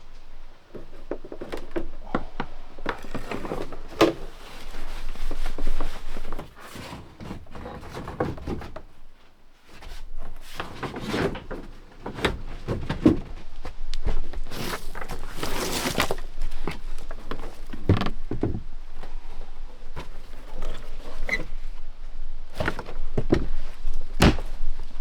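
Irregular knocks, thunks and scraping from hands-on work inside a boat's cabin or hull, with short clattering bursts and a few louder thuds.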